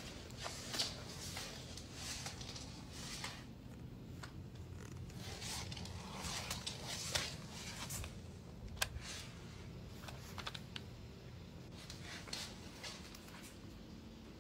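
Irregular light clicks and scratches of a green iguana's claws on a hard floor as it moves, over a steady low hum.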